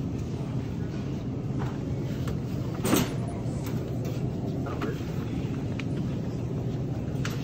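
Wire shopping cart rolling and rattling over a hard store floor, with a sharp clank about three seconds in.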